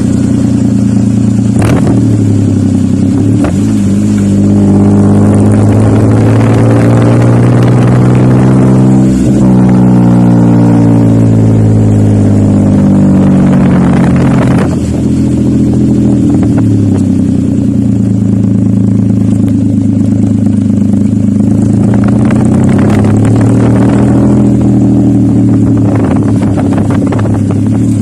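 Suzuki DA63's small three-cylinder engine running through an aftermarket SC-Project exhaust, heard close at the tip and being revved from idle. The pitch climbs slowly to a peak about nine seconds in and drops, climbs again to a peak about fourteen seconds in and falls back, then gets a shorter rev near the end.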